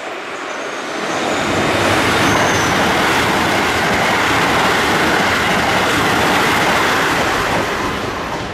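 Keikyu N1000-series electric train running past at speed without stopping. Its wheels and running gear make a steady rushing rumble that builds as it nears, holds loud for several seconds as the cars go by, and fades near the end.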